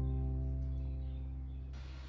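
Background music: a held chord of sustained notes slowly fading out.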